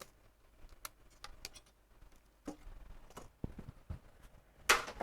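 Scattered light clicks and knocks of parts being handled on a workbench, with a few dull thumps a little past the middle.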